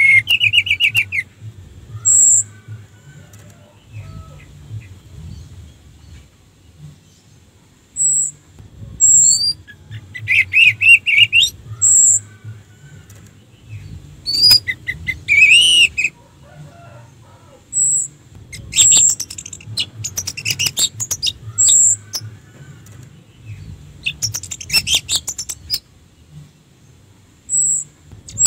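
Orange-headed thrush singing in spaced bursts: short high whistled notes every few seconds between longer phrases of rapid warbled notes, one rising and falling near the middle, and dense runs of quick notes in the second half.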